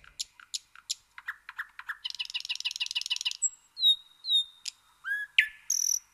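Birds chirping and calling: a string of short, high chirps, a fast trill of repeated notes about two seconds in, then a few clear whistled notes and a sweeping call near the end.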